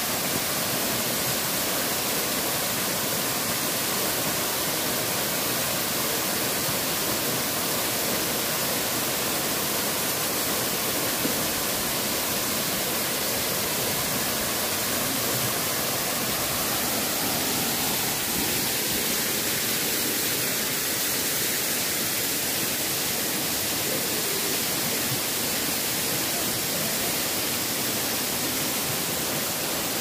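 Two waterfalls pouring down a rock face into a pool: a steady, even rush of falling water.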